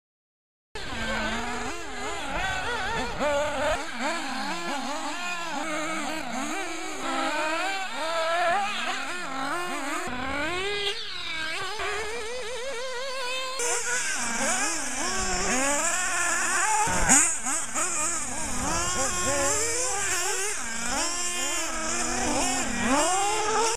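Small 3.5cc nitro engines of 1/8-scale RC buggies revving up and down as they race, the pitch rising and falling constantly, with more than one engine heard at once. The sound starts about a second in, after near silence.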